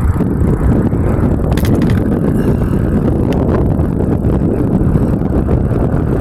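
Wind rumbling steadily and loudly over the microphone of a camera on an e-bike riding along an asphalt road, mixed with the bike's running noise.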